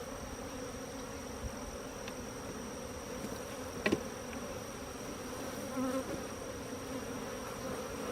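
Honeybees buzzing steadily around an opened hive, a dense continuous hum. A single short knock about four seconds in.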